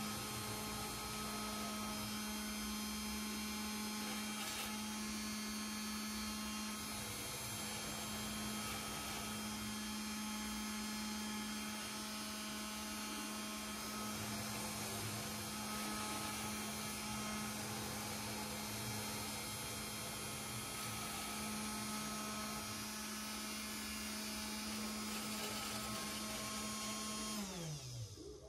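CNC 3018 Pro's spindle motor running at a steady pitch while its engraving bit cuts letters into a plastic sheet. Near the end it winds down with a falling pitch as the engraving job finishes.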